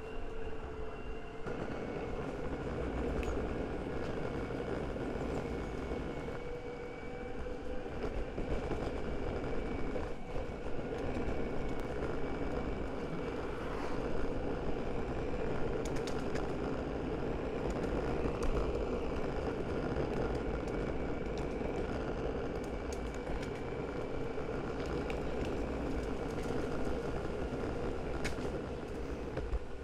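A skateboard rolling along a road: a steady rumble from the wheels with a steady whine over it, and scattered small clicks from bumps in the surface.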